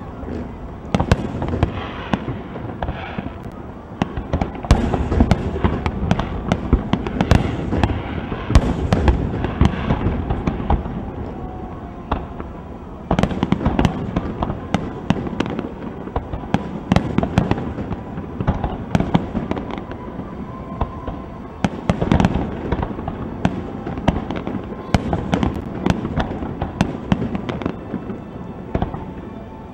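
Aerial fireworks display: many shells bursting in quick succession, sharp bangs over a steady low rumble, getting suddenly louder about thirteen seconds in.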